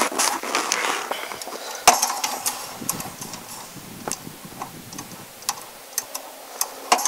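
Footsteps crunching in packed snow, then a few sharp clicks and ticks, the loudest about two seconds in.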